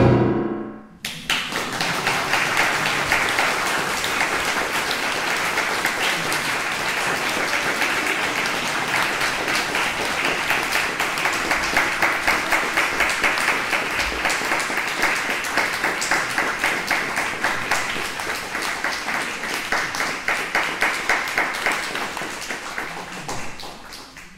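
The last chord of violin and piano dies away about a second in, then a small audience applauds, with individual claps audible, and the clapping thins and fades out near the end.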